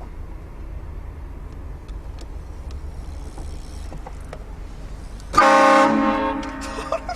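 Car-mounted train horn blasting once about five seconds in: a loud chord of several steady tones lasting about a second and a half. Before it, the low rumble of the car.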